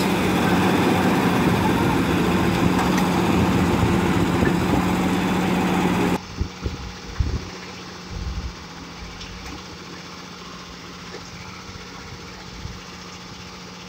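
Heavy truck diesel engine running steadily and loudly at a constant pitch. About six seconds in the sound drops abruptly to a much quieter steady engine hum, with a few knocks in the next couple of seconds.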